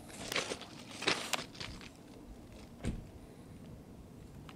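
Footsteps crunching on loose railroad ballast stones: a few steps in the first second and a half and one more near three seconds in, then only faint background.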